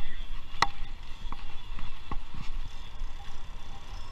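Bicycle rattling over the pavement: a few sharp knocks, the loudest about half a second in, over a steady low rumble of riding noise.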